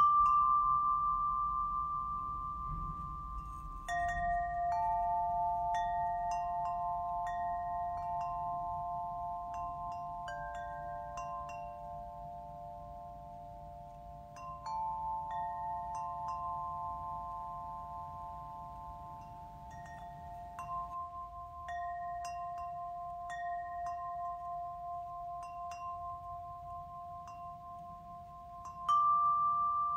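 Chimes ringing: deeper tones struck every few seconds and left to ring out slowly, with short high tinkling notes scattered over them.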